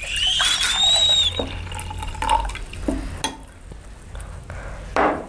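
Tea poured from a glass into a stainless-steel cocktail shaker tin, the pour rising in pitch as the tin fills. A few light knocks follow, the loudest near the end.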